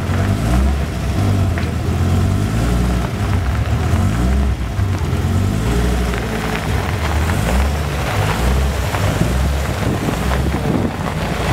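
Alfa Romeo TZ3 Zagato's Viper-derived V10 engine running at low revs as the car moves off slowly, a deep, uneven exhaust rumble that rises and falls a little in pitch.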